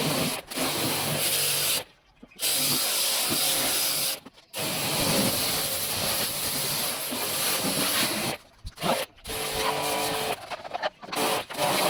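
Tools scraping and rubbing on a window AC unit as it is opened up, in stretches broken by sudden gaps.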